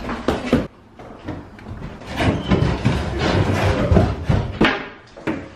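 Cabinets being handled and moved: a couple of sharp knocks, then a stretch of bumping, scraping and clattering, with another sharp knock near the end.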